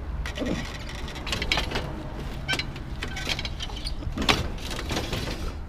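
Irregular metal clatter, knocks and rattles of scrap being handled and set in place on a load, over a steady low rumble.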